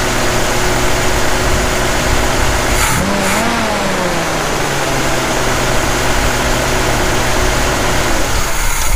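A 1981 Jeep CJ7 engine, fitted with a Weber 32/36 carburettor, idles steadily while its ignition timing is being set. Its speed rises and falls back once about three seconds in.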